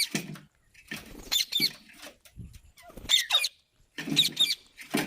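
A parrot calling in a string of short, squeaky squawks, about one a second, with gaps between.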